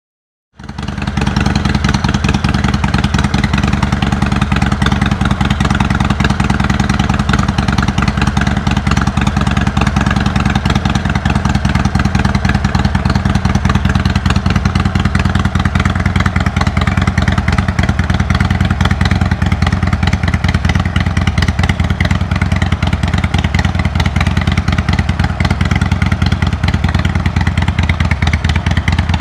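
Harley-Davidson Iron 883's air-cooled V-twin engine running steadily at idle through a Jekill & Hyde valve exhaust, coming in abruptly about half a second in.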